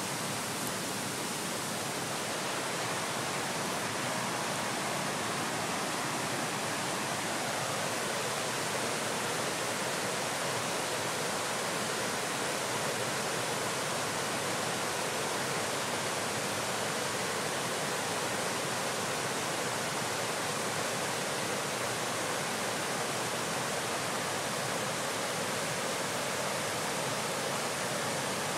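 Steady rush of flowing river water: an even hiss that holds at one level throughout.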